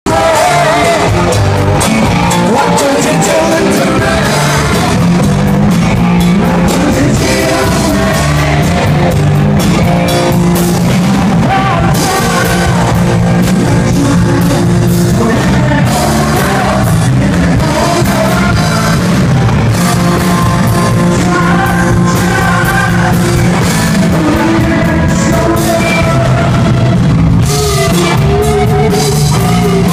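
Live rock band playing loud: a singer over electric guitars, bass and a drum kit.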